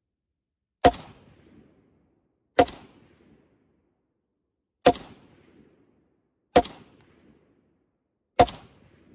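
Five rifle shots from a PSL-54C semi-automatic rifle in 7.62×54R, fired one at a time about two seconds apart. Each is a sharp crack followed by a short echo that dies away.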